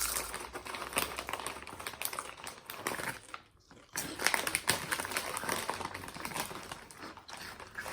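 Crinkling of a chip bag and crunching of kettle-cooked potato chips, a busy run of irregular crackles with a brief pause about three seconds in.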